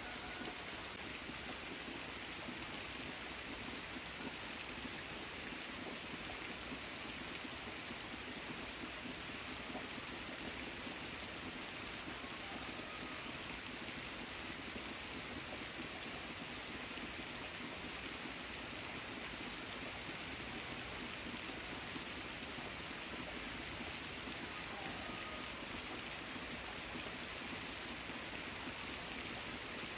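Steady rain falling on the leaves of persimmon trees, even and unbroken.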